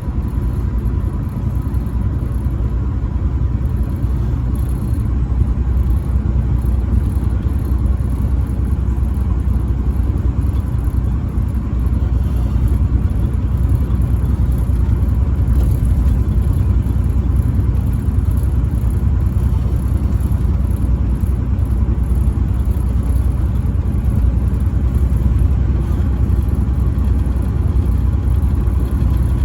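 A truck driving: a steady low rumble of engine and road noise, with a faint steady high tone over it.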